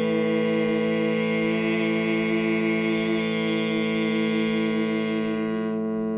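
Simple touch-controlled digital cube instrument sounding a sustained electronic drone of several held tones, one of them pulsing steadily; some of the tones fall away near the end.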